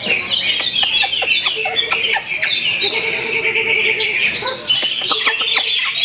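Cucak hijau (green leafbird) singing a fast, continuous, varied chattering song.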